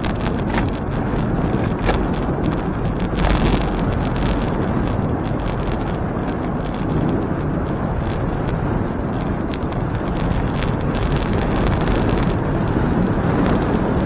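Wind buffeting the microphone of a camera riding along on a moving bicycle, a steady rushing noise strongest in the low end, with a few faint clicks.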